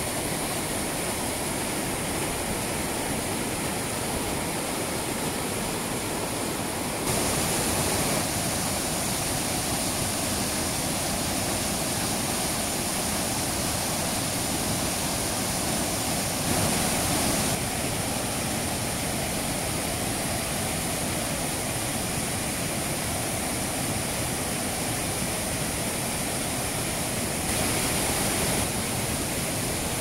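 Mountain stream rushing in whitewater cascades over boulders: a steady, even rush of water, its level stepping abruptly up or down a few times.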